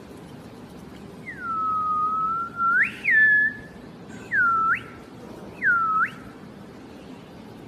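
Whistling, four notes in all. The first is a long, level note that sweeps sharply up at its end, then comes a short held note, then two short swoops that dip and rise again.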